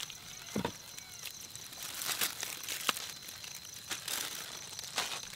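Silver foil-lined pouches crinkling and rustling as they are opened and handled, with scattered light clicks.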